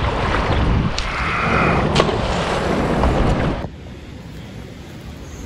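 Wind buffeting the action camera's microphone over river water sloshing, with two light clicks about a second apart. The noise cuts off suddenly about three and a half seconds in, leaving a much quieter background.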